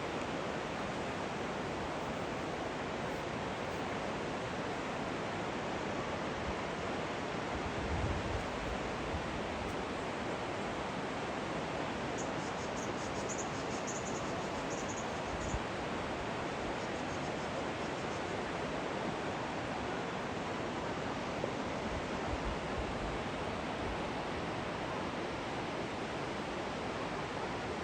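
Steady rushing and gurgling of flowing stream water.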